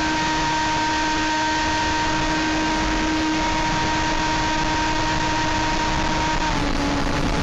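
Electric motor and propeller of a Sky Surfer v5 RC trainer plane running steadily, a held tone that steps slightly lower near the end as the throttle changes, heard over wind rushing on the microphone.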